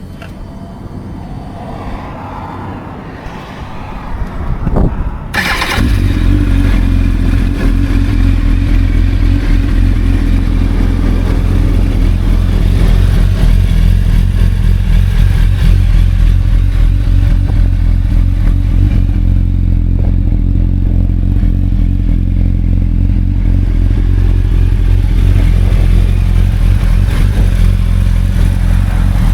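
2007 Kawasaki ZX-10R inline-four with an Akrapovic exhaust being cranked and catching about five seconds in. It then idles steadily and loudly through the exhaust.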